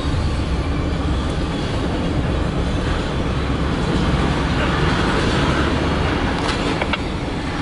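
Empty autorack freight cars rolling past on the rails, a steady rumble of wheels on track, with a few sharp clicks near the end.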